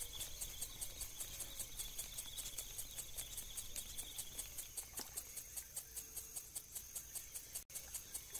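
Insects chirping in a high, steady pulse, about four chirps a second, with a fainter continuous trill underneath that fades out about halfway through.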